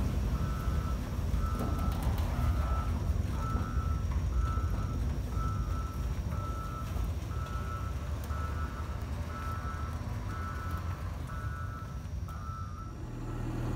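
Snowcat's backup alarm beeping about once a second over the low rumble of its engine as the grooming machine reverses away from the shed; the beeping stops near the end.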